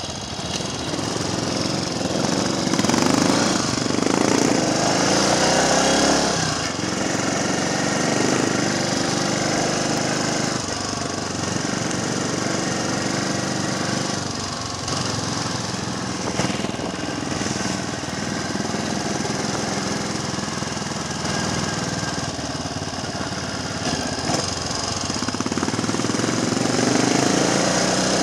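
Triumph Tiger Cub trials bike's single-cylinder four-stroke engine running on the move, its revs rising and falling a few times, over a steady hiss of wind and wet road.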